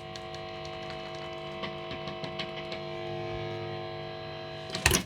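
SX Standard Series Stratocaster electric guitar through an amplifier, its strings left ringing in a steady sustained tone with light handling ticks, cut off by a click near the end.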